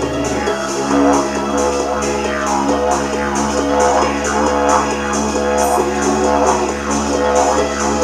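Didgeridoo played with a continuous low drone, its tone swept over and over by mouth shaping in a steady rhythm.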